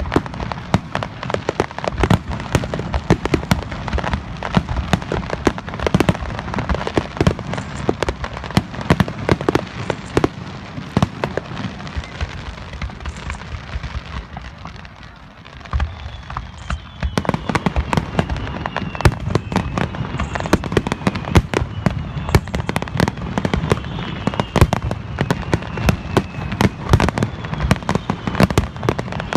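Fireworks display: a dense run of rapid crackling bangs and pops that dies down briefly about halfway through, then starts up again with faint whistles falling slowly in pitch.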